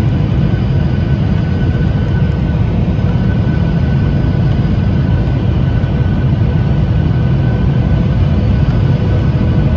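Steady cabin noise inside a Boeing 737-800 on its landing approach, heard from a window seat over the wing: a loud low rumble of the CFM56-7B jet engines and rushing air, with a faint steady whine above it.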